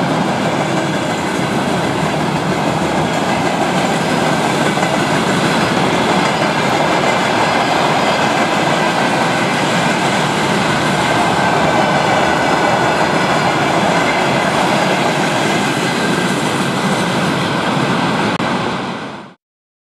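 Freight train wagons rolling past close by: a steady rumble and rattle of wheels on rail joints, with a faint steady high whine over it. The sound cuts off suddenly near the end.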